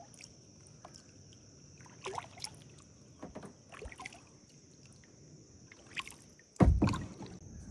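Kayak paddling on still swamp water: quiet paddle dips and drips of water, with a louder thump near the end. A steady high-pitched hiss runs underneath.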